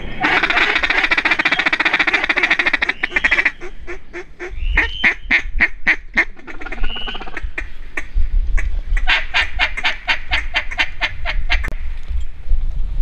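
Duck calling in mallard style: a fast rattling feeding chatter for about three and a half seconds, then a run of quacks that drop in pitch, then an even series of about a dozen quacks. The calls are loud and close, as from a hunter's hand-blown duck call.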